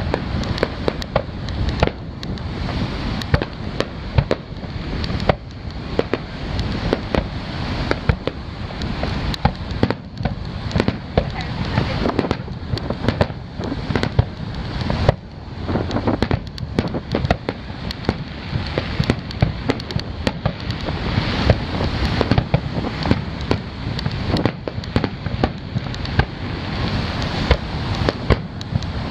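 Aerial firework shells bursting in rapid, near-continuous succession, a dense stream of bangs with a brief lull about halfway through.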